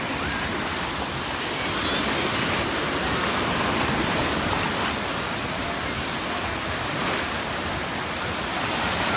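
Steady beach ambience: waves washing on the shore blended with the murmur of a large crowd.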